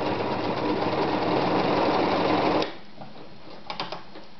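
Privileg Voll-Zickzack Superleicht 360 sewing machine running at speed, sewing a zigzag stitch with a fast, even stitch rhythm. It stops suddenly about two and a half seconds in, followed by a few light clicks.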